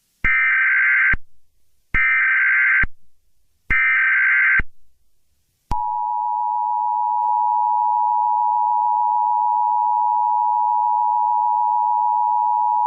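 Emergency Alert System tones: three short buzzes of digital SAME header code, each just under a second, then, about six seconds in, the steady two-tone EAS attention signal, which holds.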